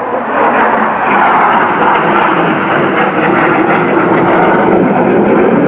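Jet engine of a low-flying F-16 fighter jet, a loud steady roar that deepens in pitch as it passes overhead.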